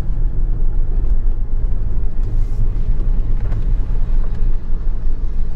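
Ford Focus ST driving on a gravel road, heard from inside the cabin: a steady low rumble of engine and tyres, with a few faint ticks.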